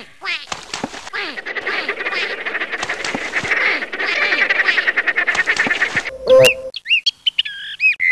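Cartoon sound effects: a rapid, nasal, duck-like quacking chatter for about six seconds, then a brief loud whistle glide and a few sliding whistle tones near the end.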